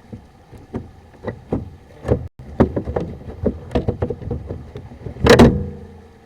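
A stiff hose reel being pulled and turned by hand, knocking and clunking irregularly, with a louder, longer clatter about five seconds in. Its swivel spool has gone stiff and won't turn freely.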